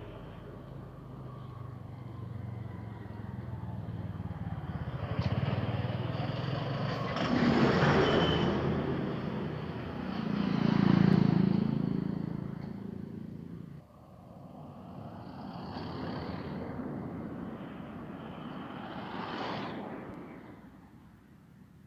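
Road traffic passing close by: several vehicles go by one after another, each swelling and fading, the loudest about eight and eleven seconds in, then dying away near the end.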